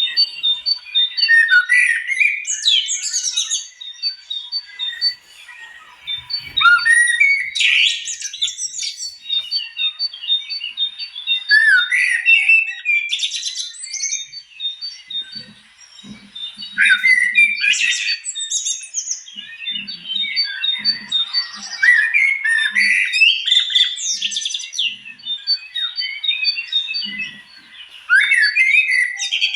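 Many birds chirping and calling over one another, in clusters every few seconds, over an even, fast run of high pips.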